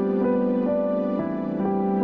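Instrumental film-score music: held notes and chords over a steady low note, the melody moving about twice a second.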